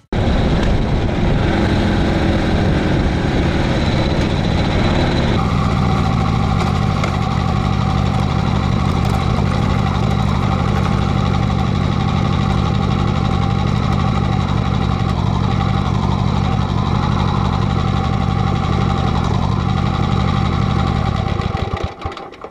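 1985 Harley-Davidson Sportster 1000 Ironhead's V-twin engine running steadily and loudly, dropping away near the end.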